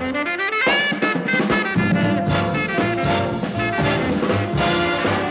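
Up-tempo swing jazz with a brass section and drum kit. In the first second a horn run climbs steeply with the bass dropped out, then the full band with bass and drums comes back in just under two seconds in.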